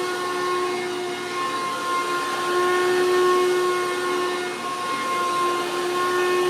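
A 2003 Hoover Caddy Vac running steadily: a motor whine of several high tones over a rushing hiss of air.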